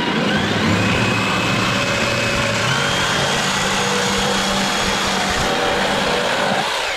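A motor running steadily with a whine.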